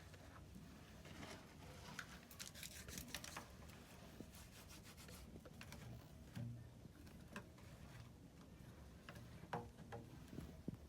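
Faint rubbing and scraping with scattered light clicks, as of small parts being handled, bunched about two to three seconds in and again near six and nine and a half seconds.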